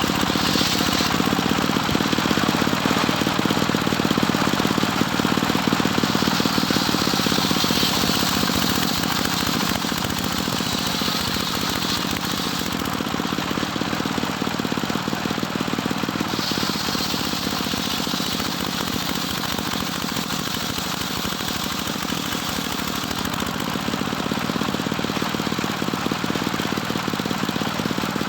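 Engine-driven circular sawmill (serkel) running steadily while sawing a small teak log, with a higher hiss that comes and goes every few seconds.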